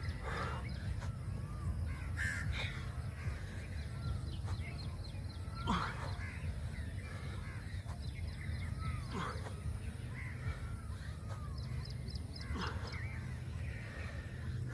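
Birds calling: a loud harsh call every three to four seconds, with fainter chirps in between, over a low steady rumble.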